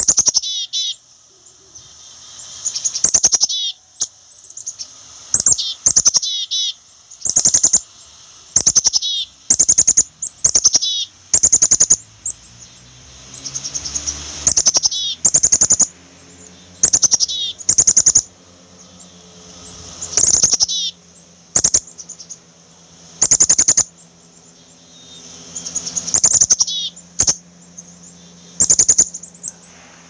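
Black-capped chickadee giving repeated harsh chick-a-dee-dee calls, a loud burst every second or so.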